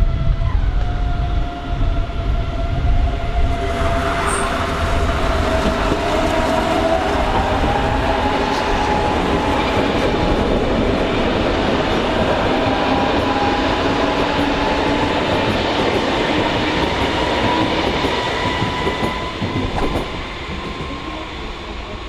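Red S-Bahn electric multiple unit running past: a steady rumble of wheels on the rails under an electric motor whine that rises slowly in pitch. The noise grows louder about four seconds in and drops away near the end.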